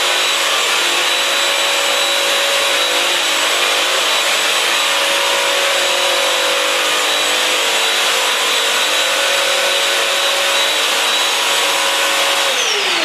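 Bissell Crosswave Advanced wet-dry floor cleaner running, its suction motor and brush roll making a steady whine as it is pushed over a hard floor. Near the end the motor is switched off and winds down, its whine falling in pitch.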